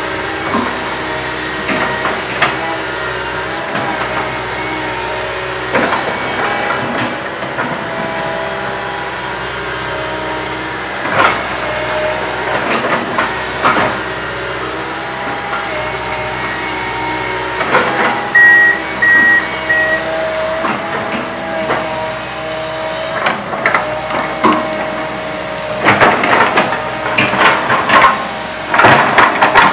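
Komatsu PC160 hydraulic excavator working, its engine and hydraulics running steadily with a whine that steps up and down in pitch, and frequent metallic knocks and clanks. A short run of three high beeps comes about two-thirds of the way through, and the knocks come thicker and louder near the end.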